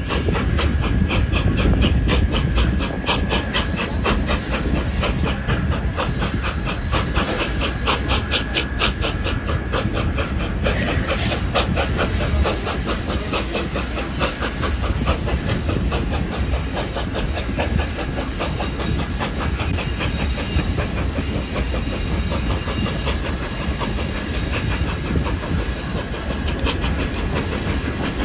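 A steam-hauled passenger train heard from aboard one of its coaches: a steady rolling rumble and hiss, with rapid, evenly spaced beats through the first dozen seconds before it settles into a steadier run.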